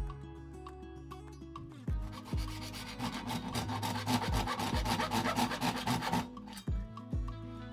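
Hacksaw with a 24-tooth bi-metal blade cutting through a clear polycarbonate plastic sheet in rapid back-and-forth rasping strokes. The strokes start about three seconds in and stop after about three seconds, over background music.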